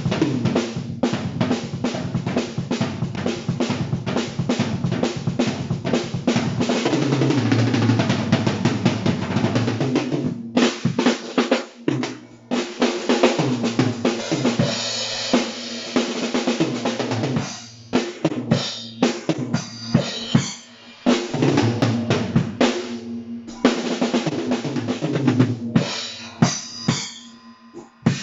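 Tama Imperialstar acoustic drum kit being played, with bass drum, snare and rimshots in fast, busy patterns that break off briefly a few times.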